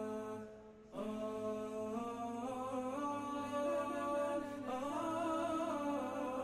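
Background vocal music: long held, slowly wavering sung notes. It drops away briefly about half a second in and comes back about a second in.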